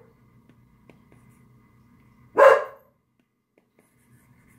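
A dog barks once, a single loud bark about halfway through.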